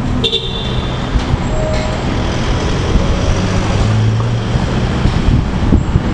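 Steady city street ambience dominated by low traffic noise, with a brief high-pitched tone just after the start.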